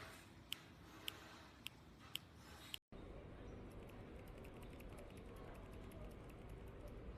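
Gateron MX mechanical keyboard switches on a keychain tester being pressed, giving sharp clicks about twice a second for the first three seconds. Then the sound cuts out abruptly and gives way to a faint steady hiss with light, rapid ticking.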